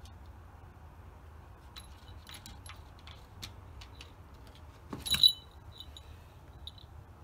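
A cat's paws and claws tapping and clicking against a glass sliding door and its frame, a string of light sharp ticks, then one louder rattling clatter about five seconds in.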